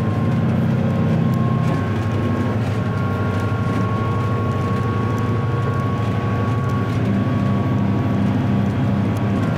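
Volvo Penta D6 380 diesel stern-drive engine running steadily at cruising speed on a planing boat: a steady low drone with a thin, steady whine above it.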